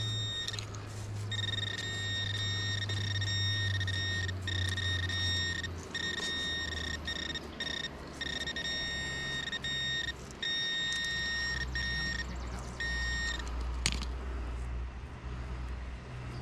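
Metal detector tones: a steady high-pitched tone that keeps cutting out and resuming over a low hum whose pitch drops partway through, as the coil sweeps over buried targets. A sharp click follows near the end.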